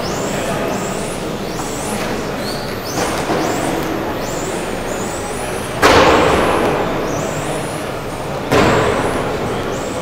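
Electric RC racing cars' motors whining, the high-pitched whine rising again and again as the cars accelerate. Two loud bangs about six and eight and a half seconds in, each echoing around the hall.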